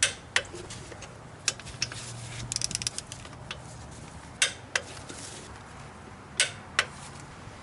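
Click-type torque wrench tightening a GM 10-bolt differential's bearing cap bolts to 60 ft-lb: sharp metallic clicks, several in pairs about a third of a second apart, as the wrench breaks over at the set torque. A quick run of ratchet ticking comes near the middle.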